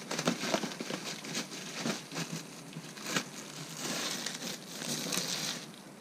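Hands handling plastic car parts: irregular crinkling and rustling with small clicks, busiest about two-thirds of the way in.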